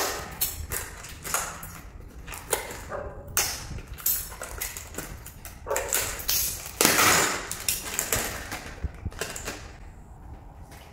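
A cardboard box being cut open with a kitchen knife and the metal drawer slide rails pulled out of it: irregular scraping, tearing and rustling, loudest about seven seconds in.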